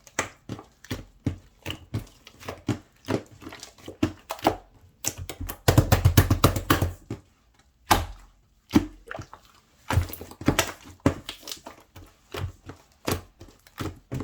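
Slime being squished and poked by hand: a run of irregular sticky clicks and pops, thickest about six seconds in.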